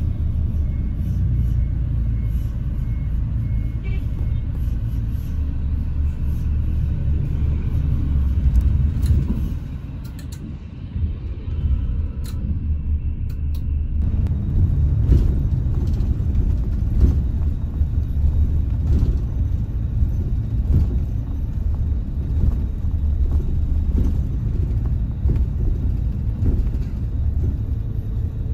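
Coach on the move: a steady low rumble of engine and road noise. The level dips briefly about ten seconds in, and after that scattered knocks and rattles come through the rumble.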